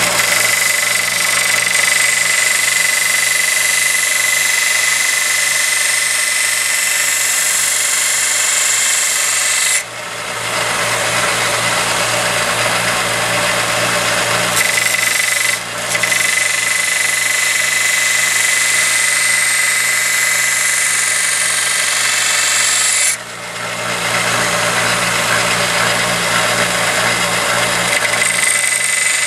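Grizzly 1x30 belt grinder running while a steel knife blade is ground on its belt: a steady motor hum under a loud, high grinding hiss. The grinding drops away briefly three times, about ten, sixteen and twenty-three seconds in, as the blade comes off the belt between passes.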